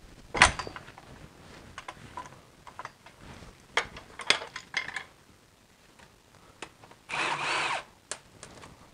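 Metal tools clanking and clicking against the drive shaft, with the loudest clank about half a second in. Near the end, a cordless electric ratchet runs for just under a second, spinning out an E12 E-Torx bolt on the front drive shaft.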